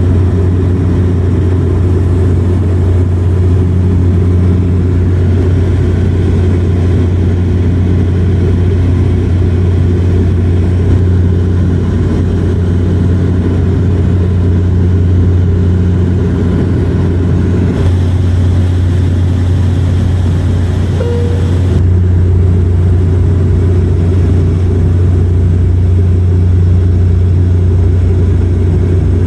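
Steady low engine drone of an airliner heard inside the passenger cabin. Its tone shifts slightly a few times.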